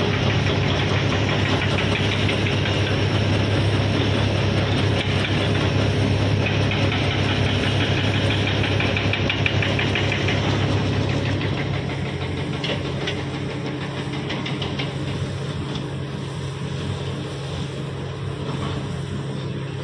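Diesel engines of large hydraulic excavators running as they dig and load dump trucks: a steady low drone with a rough rumble over it, dropping in level about eleven seconds in.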